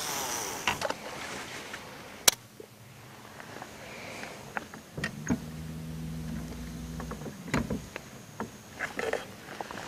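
Topwater plug being worked across a calm pond surface: small splashes and gurgles with sharp clicks, one crisp splash about two seconds in. A low steady hum joins for a couple of seconds in the middle.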